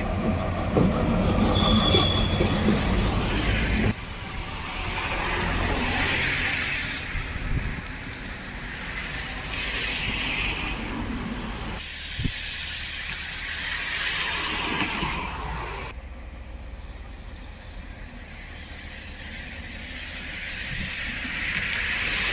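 Train running on the rails, with a brief high wheel squeal about two seconds in. The sound changes abruptly several times, with slow swells of hiss between.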